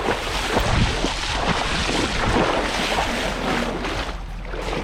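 Steady rushing noise of wind and water, without clear separate splashes or knocks.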